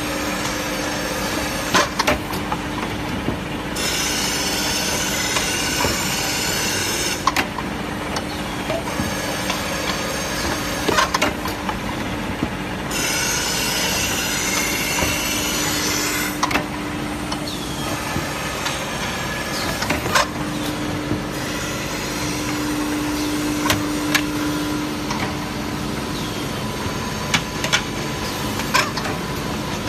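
Automatic melamine plate edge grinding machine running: a steady motor hum, with stretches of hissing, a few seconds each, as the abrasive sanding drum grinds the plate rims. Sharp clicks and knocks from the machine's moving parts come every few seconds.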